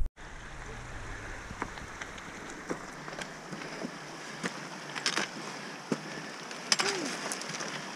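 Footsteps crunching over loose rock and scree, with stones clicking and clattering at irregular moments, loudest in the second half. A steady rushing hiss runs underneath.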